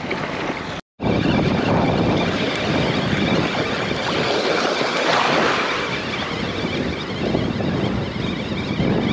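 Wind buffeting the microphone of a wearable action camera over small waves washing onto a sandy beach. The sound cuts out completely for a moment a little under a second in, then carries on steadily.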